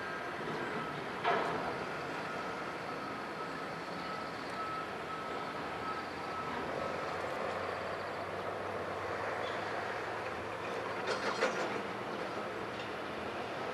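Large car ferry passing close by under way: a steady drone of its engines and the rush of its bow wave. A faint steady whine runs through the first half, with a single knock about a second in and a short cluster of clicks near the end.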